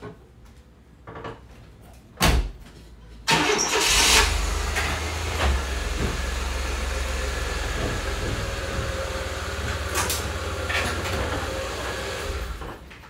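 A door thumps shut about two seconds in. Then the GMC Sonoma pickup's engine starts and runs steadily as the truck pulls up onto car ramps, and it dies away shortly before the end.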